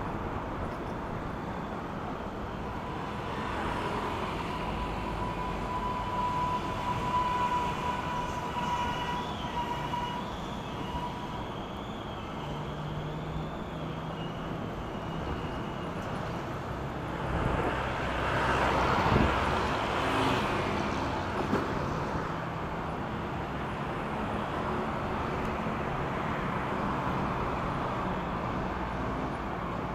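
Steady wind and road noise from riding an electric bike in city traffic, with a thin steady whine for several seconds in the first third and a louder swell of traffic noise about two-thirds of the way through.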